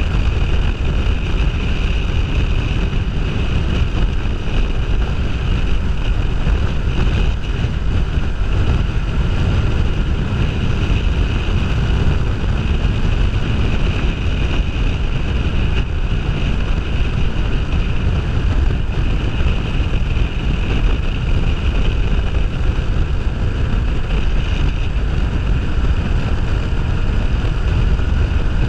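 Wind rushing over the camera's microphone, with a Kawasaki Ninja 500R's parallel-twin engine running steadily at cruising speed underneath. The sound stays at an even loudness, with no rev changes or sudden sounds.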